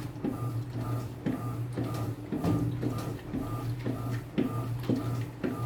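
Electrolux Essential Care 8.5 kg washing machine agitating: the motor hums in short pulses about once a second as the wash action turns back and forth, with water and clothes sloshing in between.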